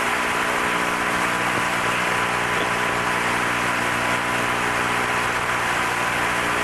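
Steady hiss of an open air-to-ground radio channel between transmissions, with a faint steady hum and tone, heard during the space shuttle's ascent.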